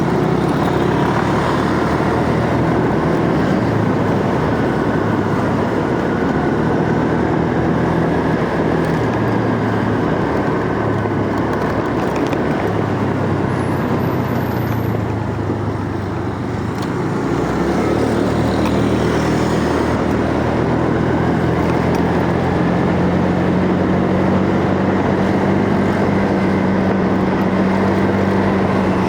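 Motorcycle engine running while riding, with wind noise rushing over the microphone. The engine note changes pitch with speed, eases off briefly about halfway through, then holds steady.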